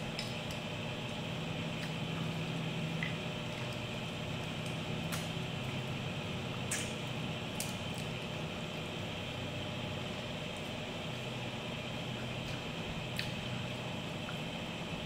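Close-up eating sounds of a person biting and chewing crisp fried tambaqui fish: wet chewing and mouth sounds, with a few sharp clicks or crunches scattered through.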